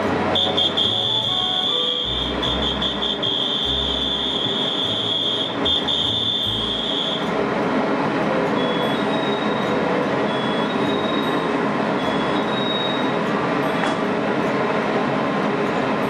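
EMU500 electric commuter train standing at a platform, its onboard equipment running with a steady hum. A steady high-pitched warning tone sounds for about the first seven seconds, and the passenger doors close in the second half.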